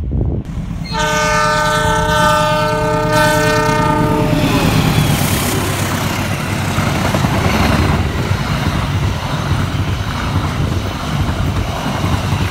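A locomotive horn sounds one long blast of several tones together, starting about a second in and dipping slightly in pitch as it ends. It is followed by the steady rumble of a train passing on the rails.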